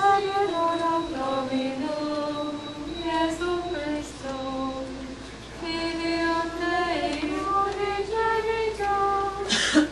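Women's voices singing a slow, chant-like melody, one line of held notes moving step by step. A short, loud, sharp noise comes just before the end.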